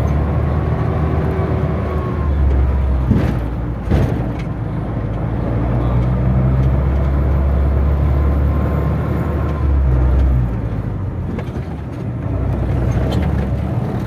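Engine and road noise heard inside the cabin of a small van as it drives, the engine's low drone shifting up and down in pitch several times. Two sharp knocks come about three and four seconds in.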